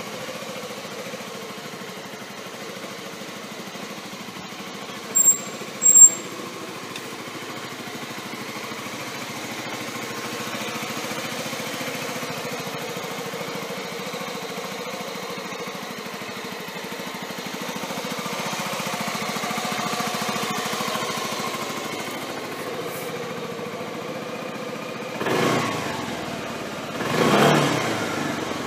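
Suzuki Gemma 250 scooter's single-cylinder engine idling steadily through its muffler, with two short throttle blips near the end. Two sharp, loud clicks come about five seconds in.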